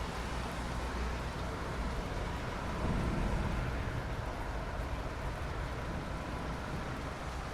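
Steady rain, an even hiss with a low rumble beneath it that swells slightly about three seconds in.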